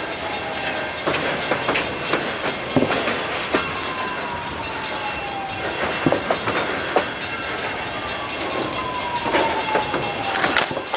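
Freight train of autorack cars rolling past, steel wheels clicking irregularly over the rail joints. Two long whining tones slide slowly down in pitch, one in the first half and one near the end.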